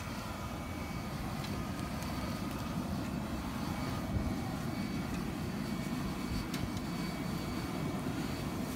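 Blast-fed charcoal furnace in a hole in the ground, roaring steadily under forced air, with a few sharp pops from the burning coals.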